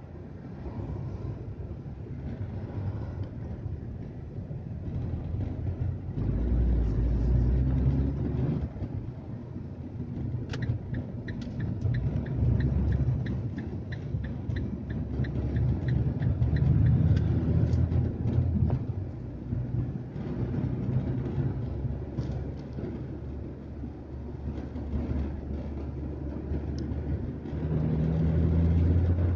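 Car engine and road noise heard inside the cabin while driving, swelling and easing as the car speeds up and slows. For several seconds in the middle, the turn-signal indicator ticks in a rapid, regular rhythm.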